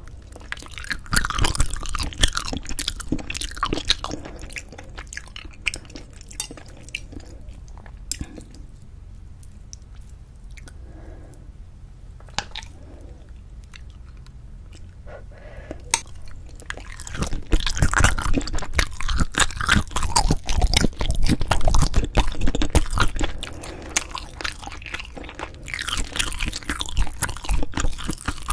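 Close-miked chewing and biting of cheese-topped braised spicy chicken: wet, sticky mouth sounds with irregular smacks and clicks. It comes in loud stretches, with a quieter spell of lighter chewing through the middle.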